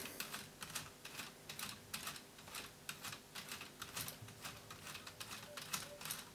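Plastic gears of a LEGO Technic 42079 forklift clicking faintly as a hand turns the control that extends the mast and raises the forks: a steady run of small ticks, a few per second.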